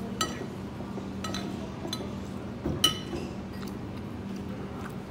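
Tableware clinking: several sharp, ringing clinks, the loudest about three seconds in, over a steady low hum.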